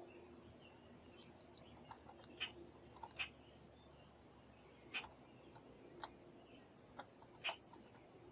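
Small birds: faint chirps behind a series of short, sharp ticks at irregular intervals, about eight in all.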